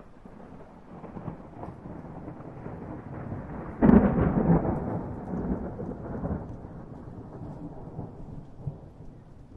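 Thunder rumbling, building for a few seconds, then a loud clap about four seconds in that rolls on and fades away, with rain underneath.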